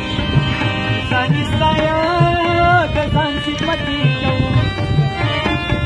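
Harmonium and tabla playing a Pashto ghazal: steady held reed chords over a running pattern of tabla strokes. A voice sings one long, wavering note from about a second in until about three seconds.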